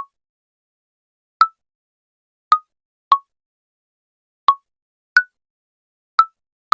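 Mobile phone keyboard key-press sounds: short, pitched pops, one per tap. There are about eight taps at uneven intervals, each at a slightly different pitch.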